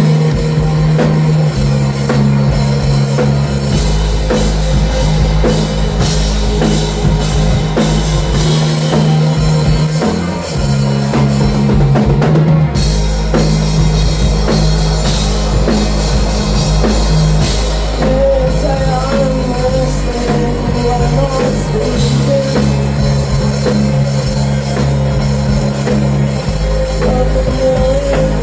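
A rock band playing live at full volume: a heavily distorted bass line and drum kit, with a wavering guitar or vocal line coming in about eighteen seconds in.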